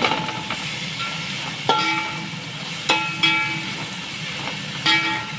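Sliced onions sizzling steadily in hot oil as a metal spoon stirs them, knocking against the cooking pot about five times, each knock leaving a short metallic ring.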